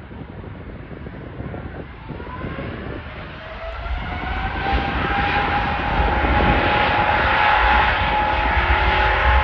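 Airbus A350-900's Rolls-Royce Trent XWB turbofans spooling up for takeoff: a whine rises in pitch about two seconds in and then holds steady. Over a low rumble, the sound grows steadily louder.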